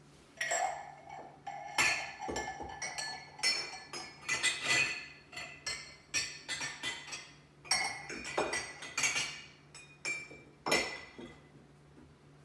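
Dishes and glassware clinking and knocking together as they are lifted out of a dishwasher rack and stacked, in a quick irregular series of ringing clinks.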